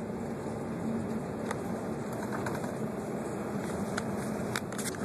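Inside the cab of a 1996 Nissan Hardbody pickup on the move: a steady engine drone with road rumble, and a few light clicks near the end.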